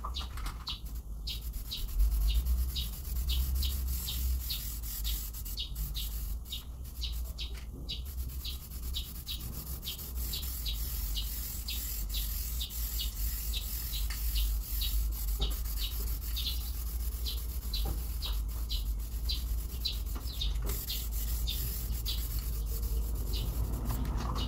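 Aerosol spray can hissing as black paint is sprayed into a bus's front wheel arch, in long sprays with a few short breaks where the nozzle is let go. A high chirp repeats about three times a second throughout.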